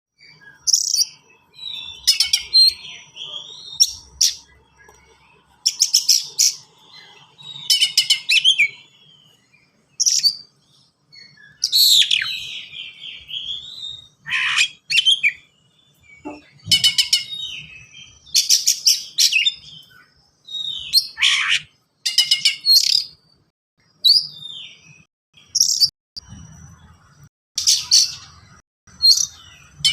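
Oriental magpie-robin (kacer) singing fast, dense phrases packed with mimicked fill-ins and sharp, piercing high notes. The phrases come every second or two with short gaps, and a few of them end in quick downward sweeps.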